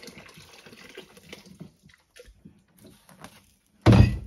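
Water poured from a plastic jug into a steel stockpot, topping up a water-bath canner, trailing off within the first second or so, followed by light knocks. Near the end, a short, loud, heavy thump.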